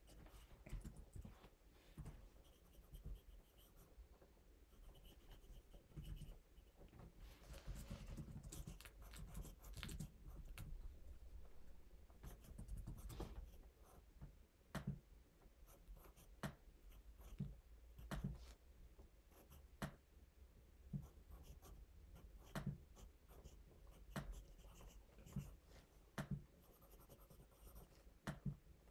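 Faint scratching of a pencil writing on notebook paper, with scattered light clicks of a laptop keyboard being typed on.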